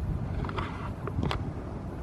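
Outdoor ambience: a steady low rumble with wind on the microphone, and a few short, sharp higher sounds about halfway through.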